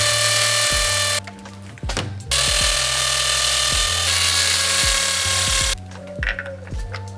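Cordless drill or power screwdriver running in two bursts, about a second and then about three and a half seconds, with a steady motor whine, as the solar panel or bracket is screwed in place. Background music with a plucked bass line plays underneath.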